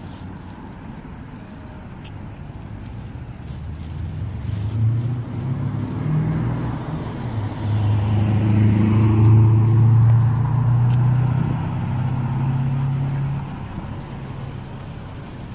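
A motor vehicle driving past on the road: its engine hum and tyre noise build over several seconds, are loudest about ten seconds in, then fade away.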